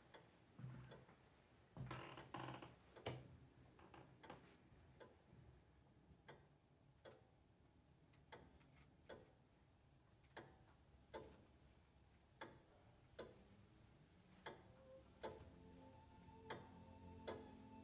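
A clock ticking slowly and evenly, about three ticks every two seconds, in a very quiet room. Faint music with held notes comes in near the end.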